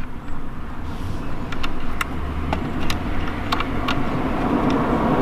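Scattered small clicks and taps of plastic wiring connectors being handled and plugged back into a steering wheel hub, over the low rumble of passing road traffic that grows louder from about a second in.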